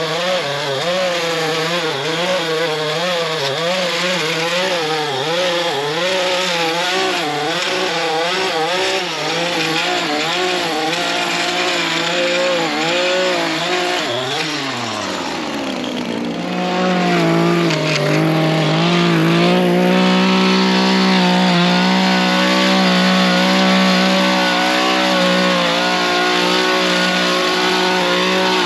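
Gas-powered edger's small engine running hard as it cuts, its pitch wavering up and down. About halfway through the speed drops away briefly, then comes back up and runs steadier and louder for the rest.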